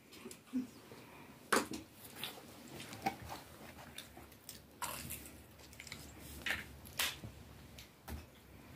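Eating and handling pizza from cardboard boxes: scattered small clicks and rustles, with a few sharper taps about a second and a half in, near five seconds and near seven seconds.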